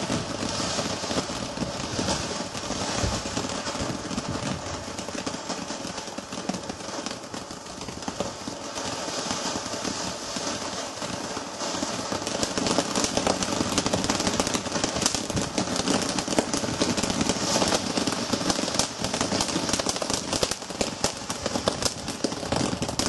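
Ground firework fountain spraying sparks with a steady hiss, thick with fast crackling pops. The crackling grows denser and louder about halfway through.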